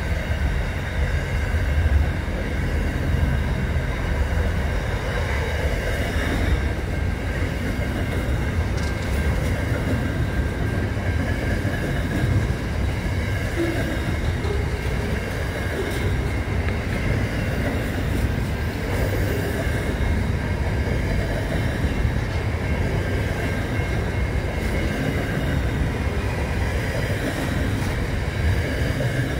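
Freight train wagons rolling past close by: a steady rumble of wheels on rail.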